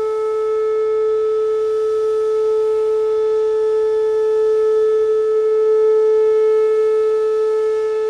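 Electronic outdoor tornado warning siren with stacked speaker cells sounding the steady Alert signal of a siren test. It holds one loud, unwavering tone with no rise or fall in pitch, and swells slightly in loudness about six seconds in.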